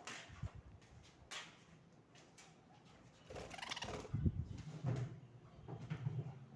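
Parrots moving about with scattered clicks, knocks and rustling, and a short harsh call a little over three seconds in.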